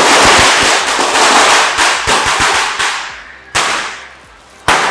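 Firecrackers going off in a rapid, dense crackle of bangs for about three seconds, dying away, then two single loud bangs near the end, echoing off a concrete parking-garage ceiling.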